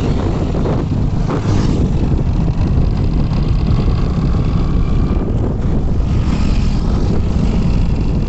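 Wind rushing over the phone's microphone on a moving motorcycle, with the motorcycle's engine running steadily underneath.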